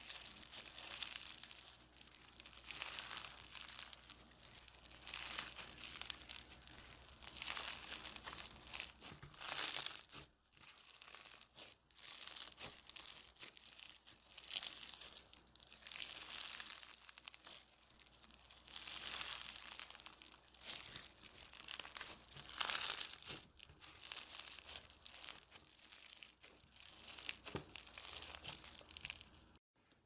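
Foam-bead slime (floam) squeezed and kneaded by hand, its beads crackling and crunching in repeated swells. The crackling cuts off abruptly just before the end.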